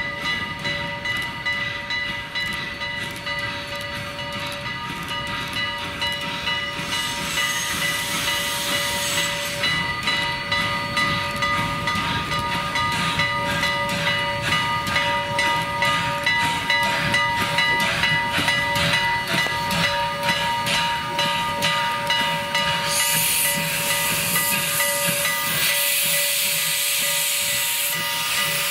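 Steam locomotive bell ringing steadily on Little River Railroad #1, a Vulcan Iron Works 0-4-0T tank engine, as it runs slowly, over a low rumble from the train. Steam hisses loudly for a couple of seconds about a quarter of the way in, and again through the last few seconds as steam blows from the cylinder cocks.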